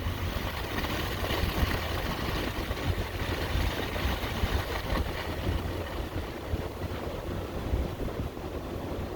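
Steady road and engine noise heard from inside a moving car driving through snow: a low rumble with a hiss of tyres and air.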